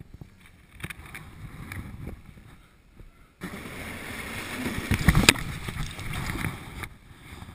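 Plastic kayak hull sliding and scraping over snow while being towed. About halfway through, a louder rush of snow noise starts suddenly. It carries heavy knocks and thumps as the kayak bumps and lurches through the snow, then drops off near the end.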